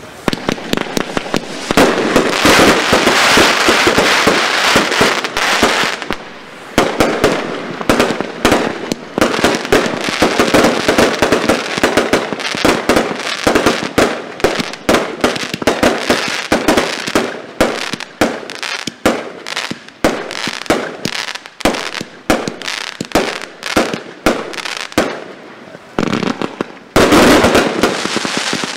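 Geisha 1666 Airforce Display Box, a double-compound firework battery, firing a rapid, continuous barrage of shots and crackling star bursts. There is a brief dip about six seconds in and a dense burst near the end.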